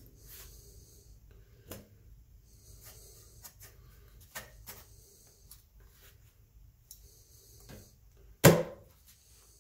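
Small metal pieces being handled on a Brown & Boggs No. 102 cast-iron sheet-metal brake: light clicks and metal rubbing, then one loud metallic clank that rings briefly, about eight and a half seconds in.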